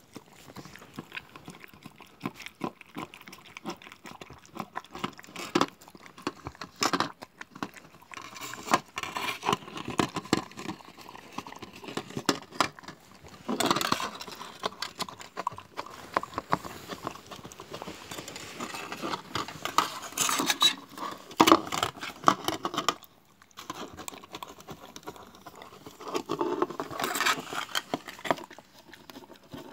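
A dog licking and lapping out a plastic tub, with wet tongue smacks in irregular bursts, while the light plastic tub knocks and scrapes on a wooden floor as it is pushed around.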